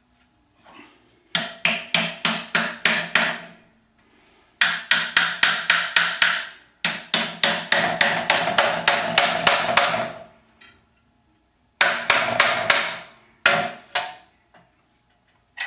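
Ball peen hammer striking a bundle of 1/8 inch steel bars clamped in a vise, bending them over to a right angle. The blows come in four quick runs of about three to four a second, each blow ringing, with short pauses between the runs.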